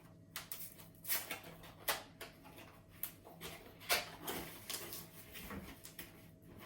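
A cardboard keyboard box being opened and its packaging handled: irregular rustling, scraping and light knocks, loudest about a second, two seconds and four seconds in.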